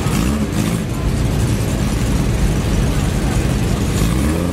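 A car engine running with a deep rumble. The revs rise briefly near the start and again near the end.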